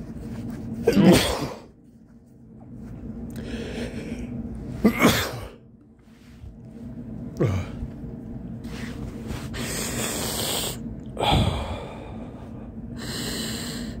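A man sneezing four times, a few seconds apart, with breaths drawn in audibly between the sneezes.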